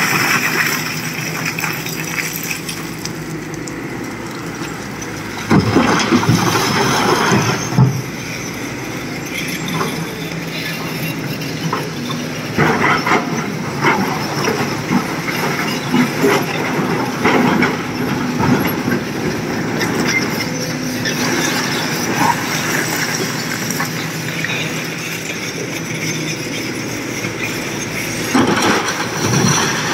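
SANY SY225C crawler excavator's diesel engine running steadily under load while its bucket digs and scrapes through broken rock. Loud clattering surges of tumbling rock come about six seconds in, around twelve seconds, and near the end, when a bucketful of rock drops into the steel body of a dump truck.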